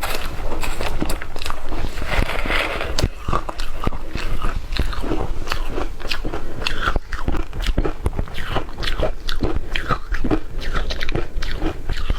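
Shaved ice being bitten and chewed: a continuous run of crunches.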